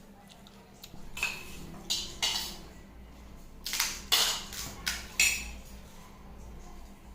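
Eating fuchka (pani puri) from a plate, with about seven short, sharp, irregularly spaced sounds of crisp shells and dishware.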